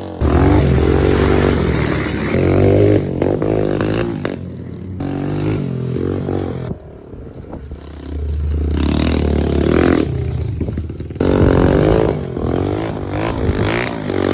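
An engine revving repeatedly, its pitch swelling up and down, with some clatter.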